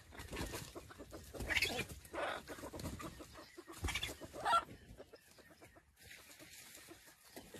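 Wild junglefowl clucking: about four short calls in the first half, the last one rising in pitch.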